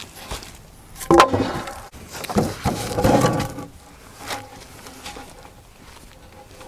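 Cedar timbers knocking and scraping against wood as they are handled: two rough bouts of clatter, then one sharp knock.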